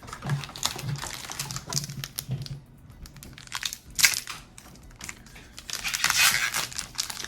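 Foil trading-card booster pack wrapper crinkling as it is handled and torn open, in irregular rustles with a sharp louder crackle about four seconds in and a longer crinkle near the end.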